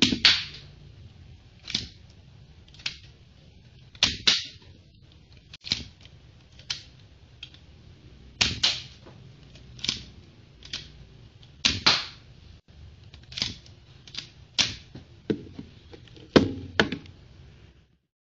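Spring-powered, slide-action Lego brick pistol being racked and fired over and over: a string of sharp plastic clicks and snaps, a second or so apart, several coming in quick pairs.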